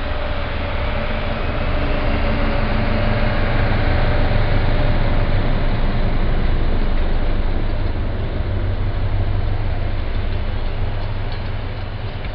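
SU42 diesel locomotive pulling away under power with its passenger coaches: a deep engine drone with a steady whine, mixed with the rumble of coaches rolling past, swelling to its loudest in the middle and fading as the train moves off.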